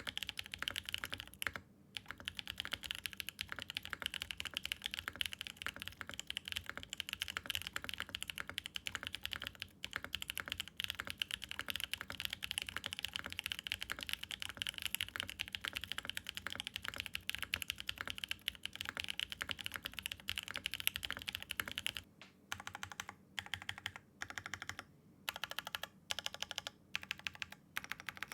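Mechanical keyboard typing on BSUN Strawberry Cheesecake tactile switches (long-pole LY stem, POK housings, factory lubed) in a Mode Envoy with a POM plate, GMK keycaps and no foam: fast continuous typing, then for the last six seconds or so short runs of keystrokes with brief pauses between. A deep, thocky, fairly muted sound for a long-pole switch.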